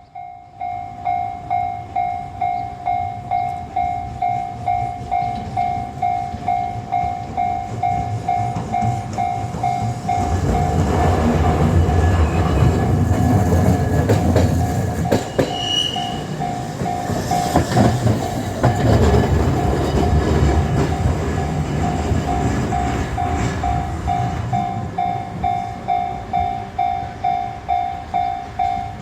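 A level-crossing warning bell rings in a steady repeated ding at about two strokes a second. From about ten seconds in to about twenty-four seconds, Kagoshima City Tram cars 9505 and 9702 pass each other through the crossing, rumbling, with their wheels clicking over the rail joints. The rumble swells twice, once for each car.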